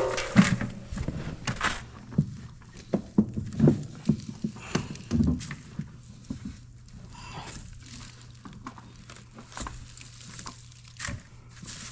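Handfuls of dry straw and dirt being pulled out of a skid loader's frame by hand and dropped into a bucket: irregular rustling and crackling, busiest in the first half, over a steady low hum.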